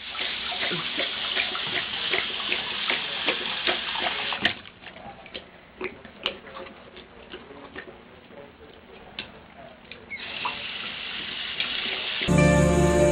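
Water running from a bathroom sink faucet while a dog laps at the stream, with many quick splashy clicks from its tongue. The flow is louder in the first few seconds, drops about four and a half seconds in, and swells again near the end. Music cuts in just before the end.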